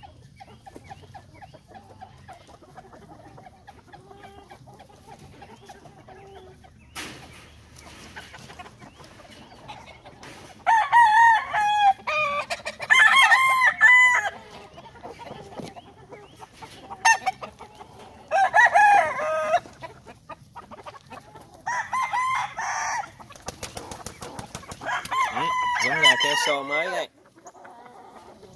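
Roosters crowing: several long crows, one after another, from about ten seconds in, over quieter sounds from the pens before that.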